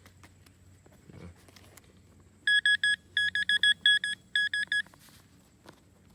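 Metal detector beeping over a buried metal target: about a dozen short, high beeps, all at the same pitch, in quick clusters. They start about two and a half seconds in and stop just before five seconds.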